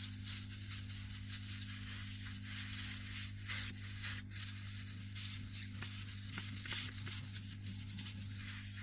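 Hot-air blower running steadily with a hiss and low hum, heating the phone's double-sided adhesive tape so the back panel will stick, with small clicks and rubbing of the phone being handled.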